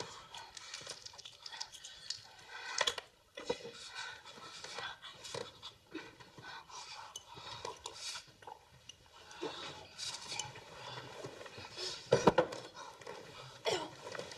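A woman breathing hard in irregular gasps and groans, with small knocks and clinks of glass and objects being handled.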